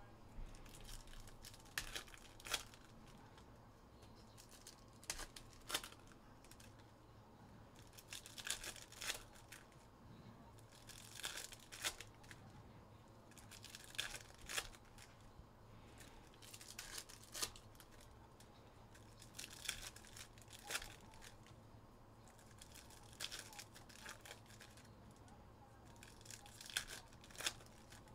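Plastic trading-card packaging crinkling and tearing, in faint short bursts about every three seconds.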